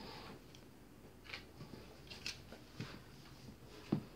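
Dog and kitten play-fighting on a hard floor: a few brief, soft scuffs and rustles, with a dull thump near the end.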